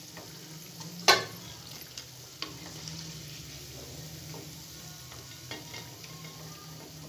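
Pakoras frying in hot oil in a steel pot, with a steady sizzle, while a wooden spatula stirs and lifts them out. There is one sharp knock about a second in and a few fainter clicks later, from the spatula working in the pot.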